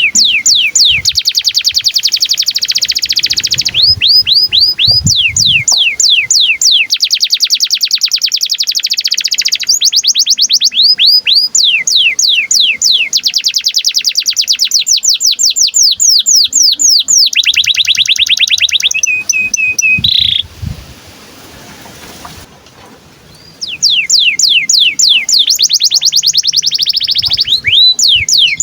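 Domestic canary singing long, fast trills of repeated sweeping chirps in phrase after phrase, the song of a canary in breeding condition. It breaks off for about three seconds about two-thirds of the way through, then starts again.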